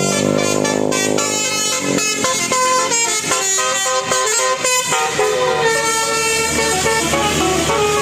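Indonesian bus 'telolet' horn: a multi-tone musical air horn playing a melody of short, stepping notes. A lower tone rises and falls underneath during the first two seconds.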